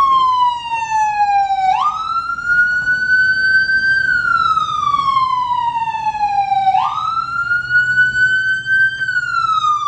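Emergency vehicle siren wailing: one loud tone that slowly falls in pitch, jumps quickly back up, then climbs and falls again, about every five seconds.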